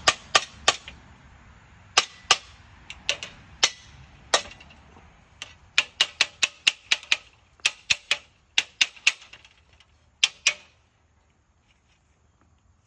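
Runs of sharp, rapid clicks, about three to five a second, as screws are driven into a metal gate bar; the clicking stops about ten and a half seconds in.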